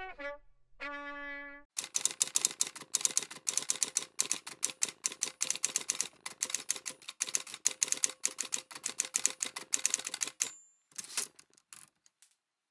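The intro jingle ends with a couple of sustained brass-like notes. Then comes a typewriter typing sound effect, a fast irregular run of key clacks lasting about nine seconds, with a brief high tone and a few scattered clicks near the end.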